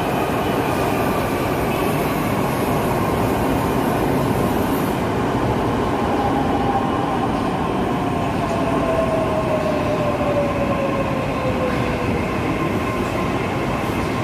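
BEML-built metro train pulling into a station platform and braking, with steady rolling noise. About halfway through, an electric whine falls steadily in pitch as the train slows.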